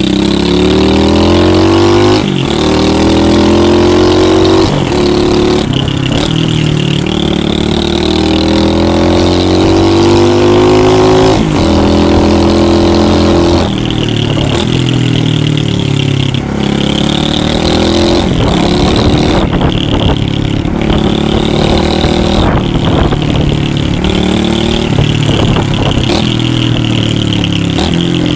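Lifan 125cc pit bike's single-cylinder four-stroke engine under way. It revs up in long rising sweeps, with the pitch dropping at each gear change, then runs at varying throttle with shorter rises and dips.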